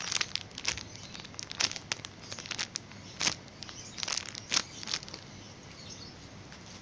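Irregular crinkling and crackling as a mini donut squishy toy is handled and squeezed. The crackles are scattered unevenly and thin out near the end.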